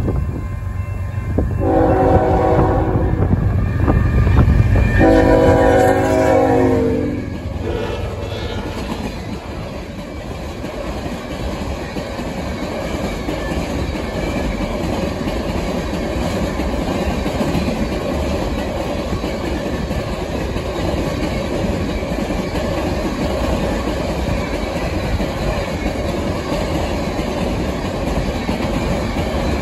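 CN GE ES44AC diesel locomotive sounds its multi-tone air horn in two blasts over the low rumble of its engine, the second blast dropping in pitch at its end as it passes. A long train of empty steel ore hoppers then rolls by with a steady rumble and clickety-clack of wheels on the rails.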